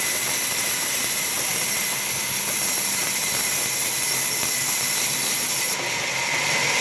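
Large vertical band saw ripping lengthwise through a thick timber beam that is being pushed through by hand: a steady, high hiss of the blade cutting the wood.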